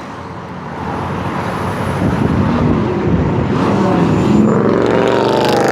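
Car engine revving as the car drives past, growing louder about a second in, its pitch rising and falling.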